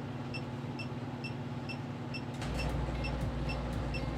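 Alarm panel keypad beeping short high beeps about twice a second: the exit-delay countdown after the system has been armed. A steady low hum comes in about halfway through.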